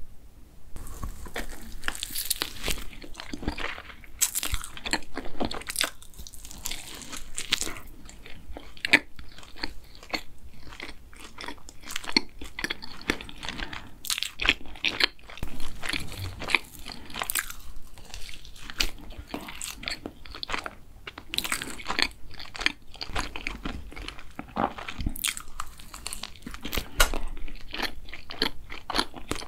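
Close-miked ASMR biting and chewing of a glazed banana Nutella doughnut with a crumb topping. Irregular small crunches and mouth sounds come thick and fast, starting about a second in.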